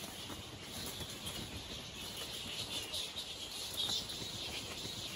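Wingbeats of a straw-coloured fruit bat flying overhead, against a steady high-pitched background chorus.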